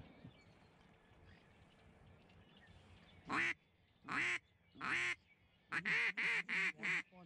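Duck call blown by a hunter: three separate quacks about a second apart, starting about three seconds in, then a quick run of five shorter quacks near the end.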